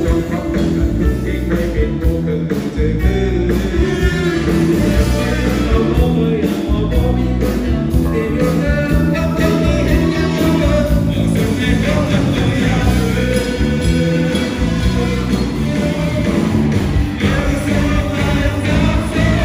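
A live band plays a rock-style song with singing: drum kit, electric bass, electric guitar and keyboard, played loud over a PA.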